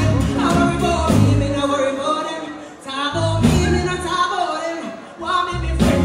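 A woman's live dancehall vocal, sung into a handheld microphone over a backing track with heavy bass and drums.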